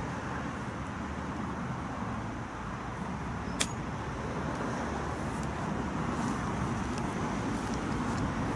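A golf wedge striking a ball out of thick rough: one sharp click about three and a half seconds in, over a steady outdoor rumble.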